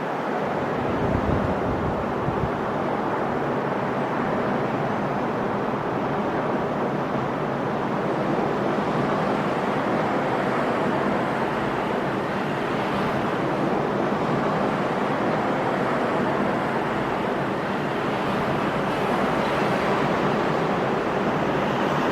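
Sea surf washing continuously onto the shore, a steady rushing noise that swells and eases slightly, with a little wind buffeting the microphone near the start.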